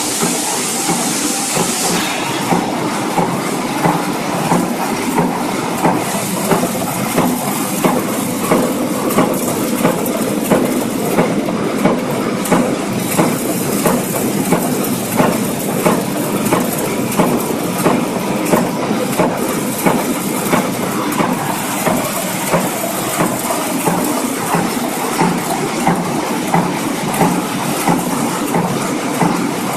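Multi-station blanking and cupping press running at speed, punching cartridge cups from metal strip with a regular clatter of about one and a half strokes a second. A hiss sits over the first two seconds.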